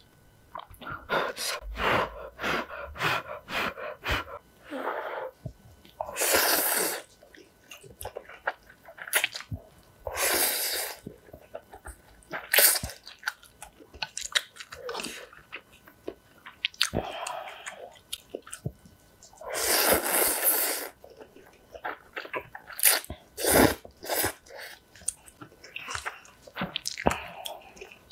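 A person slurping instant ramen noodles in several long, noisy draws, the loudest about 6, 10 and 20 seconds in. Between them come close, wet chewing and small clicks of chopsticks and spoon.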